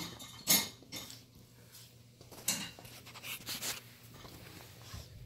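Two dogs play-fighting at close range, a puppy and an older dog, with a few short, sharp scuffling and mouthing noises: the loudest about half a second in, more around two and a half and three and a half seconds.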